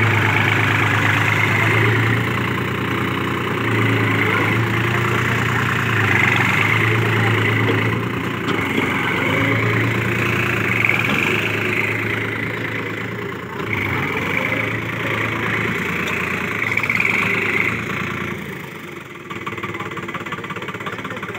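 New Holland 4710 tractor's three-cylinder diesel engine running under load while it drives a rotavator tilling the soil, the engine note swelling and easing every couple of seconds. The sound drops noticeably a few seconds before the end.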